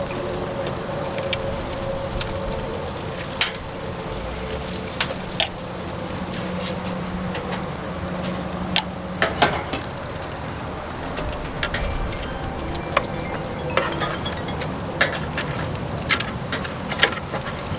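Scattered sharp clicks and taps of screws being backed out and handled at the sheet-metal outer cover of a Suburban RV furnace, over a steady background hum.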